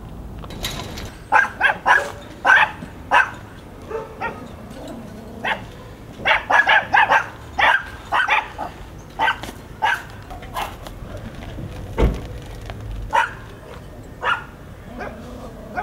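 Dog barking repeatedly: short, sharp barks, sometimes single and sometimes in quick runs of several, with pauses between.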